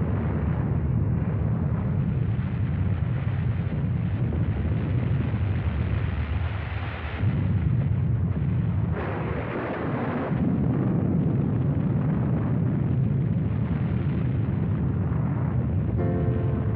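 Deep, continuous explosion rumble dubbed over footage of the Nagasaki atomic bomb's fireball and mushroom cloud, surging again about seven seconds in. Music comes in near the end.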